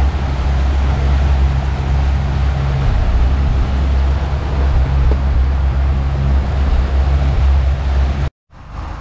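Mercury outboard motor running steadily at speed with the boat under way, a low hum over the rush of wind and churning water. It cuts off suddenly near the end.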